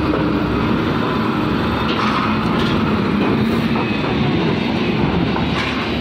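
Heavy diesel trucks driving off a ro-ro ferry onto its steel ramp, a UD Trucks Quester passing close by: a steady low engine rumble with rattling from the steel plates and grating, and a few faint knocks.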